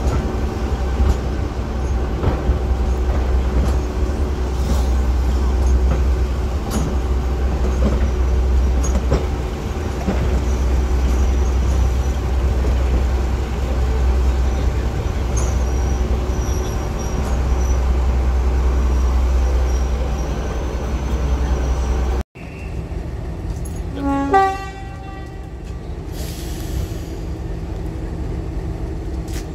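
Diesel locomotive engine running with a heavy, steady low rumble. After an abrupt cut at about twenty-two seconds the engine is quieter, and a locomotive horn gives one short toot about two seconds later.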